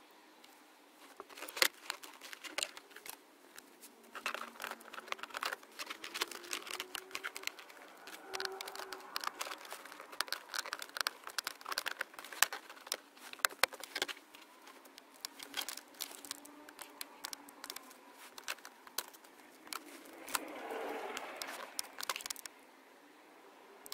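Hands feeding wiring through a gap in the plastic centre-console trim of a car, with many irregular sharp clicks, rustling and plastic creaks as cables and trim are handled. A longer stretch of rustling and scraping comes near the end.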